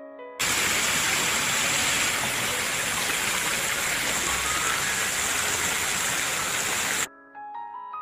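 Water splashing and cascading down a tiered stone fountain, a loud steady rush that cuts in about half a second in and stops abruptly about a second before the end. Instrumental music with sustained notes plays on either side of it.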